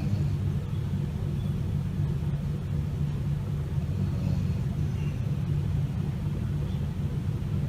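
Pug puppy snoring: a low, steady snore.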